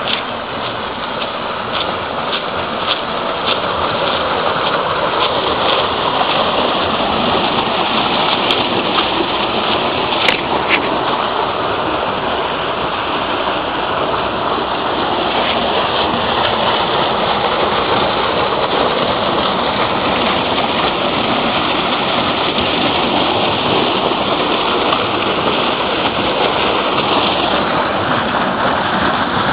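Water gushing from several pipes into a stone-lined irrigation channel: a steady rushing that grows louder over the first few seconds, then holds.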